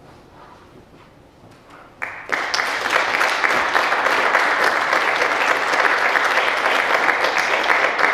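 A brief hush after the band's final chord, then about two seconds in the audience breaks into steady applause, which begins to fade near the end.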